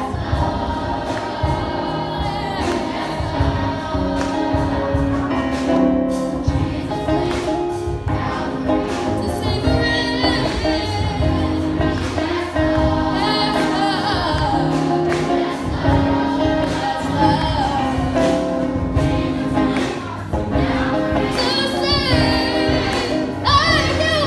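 A choir singing a gospel song over band accompaniment with a steady beat.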